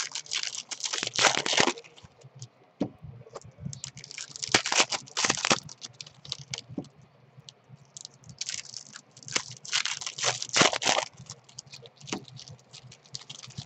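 Plastic wrapper of a baseball card pack crinkling and tearing as it is opened and the cards are pulled out, in three spells of crackling with quieter handling between.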